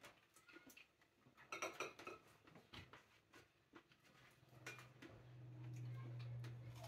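Faint clicks and taps of hands handling strawberries, plates and a glass bowl of cream, with a brief cluster about one and a half seconds in. A steady low hum comes in about four and a half seconds in and grows a little louder.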